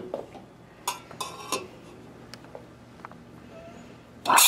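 A few light metallic clinks from a stainless steel milk pitcher being handled under an espresso machine's steam wand, then near the end the steam wand opens into the milk with a loud, steady hiss as milk steaming begins.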